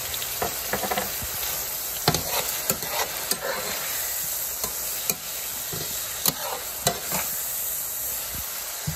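Diced steak, peppers and onions sizzling in a frying pan as a slotted spatula stirs them, with irregular clacks and scrapes of the spatula against the pan.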